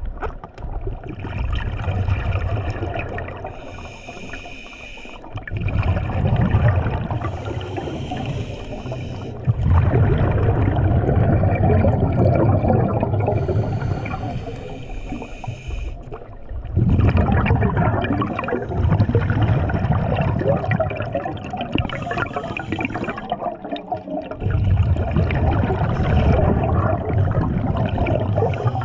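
Underwater bubbling and gurgling from a scuba diver's exhaled air, in long gushes of several seconds broken by short pauses with a thin hiss.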